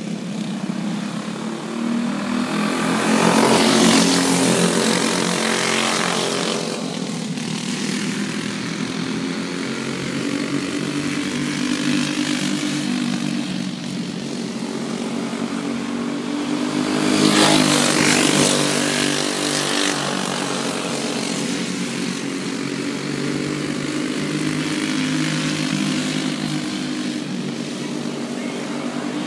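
Racing karts at speed, several small engines running together. The sound swells as the pack passes close about four seconds in and again at about seventeen seconds, fades between while they run the far side, and builds again near the end as they come round once more.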